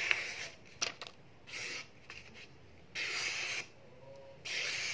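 A sheet of paper being slashed in the air by a very sharp golok whose blade is forged from Jeep Willys leaf-spring steel. It makes a crisp hissing rip with each stroke, about four cuts in all, with a sharp click a little under a second in.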